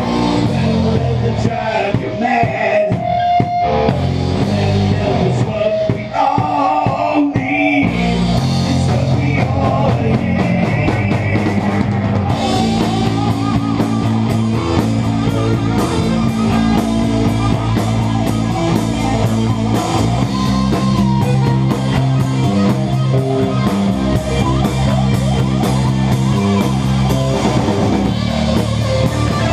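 Heavy metal song with drum kit, guitar and singing, with an electric bass played along to it. The music thickens about eight seconds in and stays full and driving after that.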